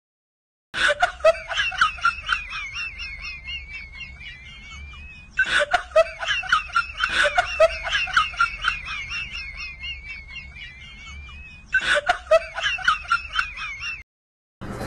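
A person giggling in high-pitched snickering laughs, in three bouts that each start with a quick burst and trail off.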